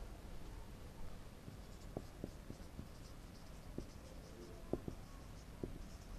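Marker pen writing on a whiteboard: faint squeaks and small taps of the strokes as a word is written out.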